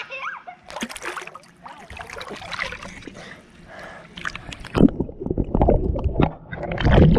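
Splashing and sloshing water in a swimming pool. About five seconds in, the sound turns deep and muffled, with underwater gurgling and sloshing.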